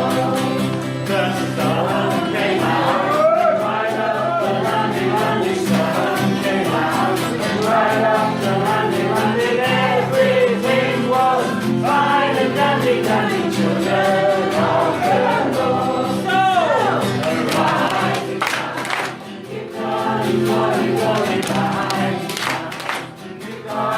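A group of voices singing together over sustained low instrumental accompaniment, with brief dips in loudness near the end.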